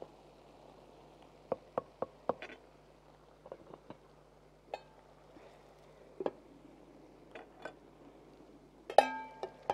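Scattered clinks and knocks of cooking utensils against pots and lids, with a loud ringing metal clank about nine seconds in.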